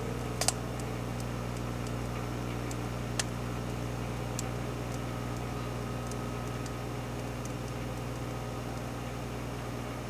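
Microwave oven running with a steady low hum, and a few sharp clicks from inside the cavity, the loudest about half a second in.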